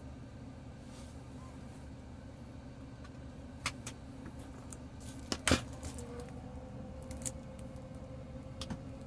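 Parked truck's engine idling steadily, kept running for the air conditioning. A few sharp clicks and knocks cut in, the loudest about halfway through.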